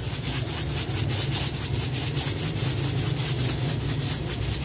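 Chocolate sprinkles being shaken out of a plastic bottle onto a pancake, a rapid rhythmic rattling at about six shakes a second, over a steady low hum.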